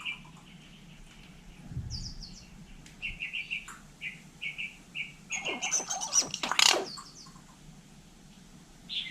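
Hill myna calling: a run of short, repeated chirps, then a louder, harsh call a little past the middle.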